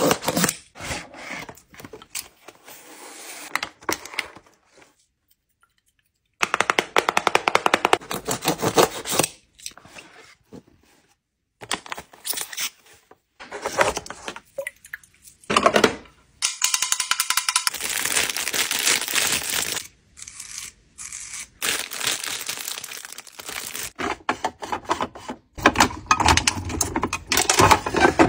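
A string of close-up packaging and handling sounds, stop-start with short silent gaps. A box cutter slits the tape on a cardboard box, then the box and the tray of glass facial ice globes are handled. Near the end a clear acrylic storage drawer unit is handled.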